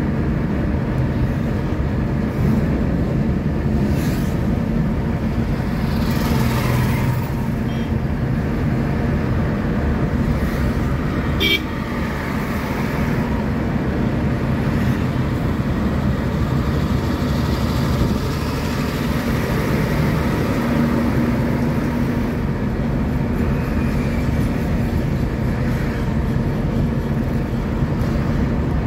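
Steady road noise from a moving vehicle on a highway: low engine and tyre rumble with traffic passing. There is a short click about eleven seconds in.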